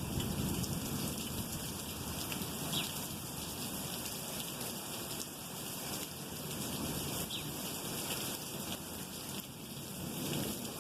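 Steady rain falling and pattering on surfaces in an even hiss, with two faint short high chirps about three and seven seconds in.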